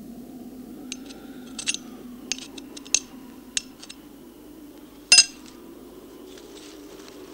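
Small metal tin being handled: a string of light metallic clicks and clinks, then one louder clink about five seconds in, over a steady low hum.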